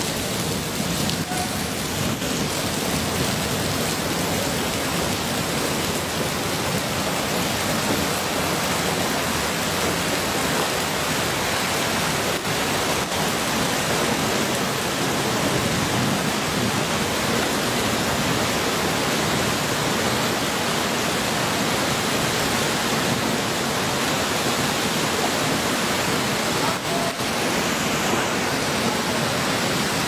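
A muddy flash flood surging down a gravel channel, carrying rocks and debris. The water makes a steady, loud rush.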